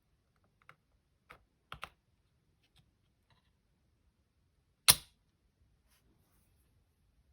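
Small hard clicks and taps of laptop parts being handled during a hardware upgrade: a few faint clicks, including a quick double click, then one loud sharp click about five seconds in.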